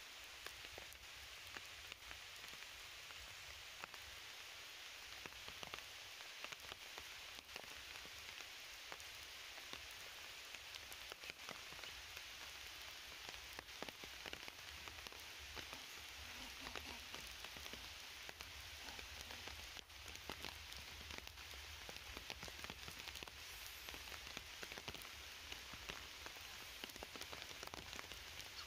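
Steady rain falling on forest foliage: an even hiss with many scattered drops ticking throughout.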